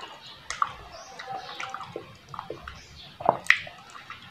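Wet eating sounds of ripe soursop pulp being sucked and chewed, with irregular lip smacks and small sharp clicks.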